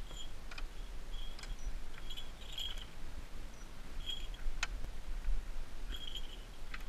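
Metal latches and doors of a hawk transport box clicking and rattling as they are worked open by hand, with one sharp click about halfway through. Short high notes sound several times alongside.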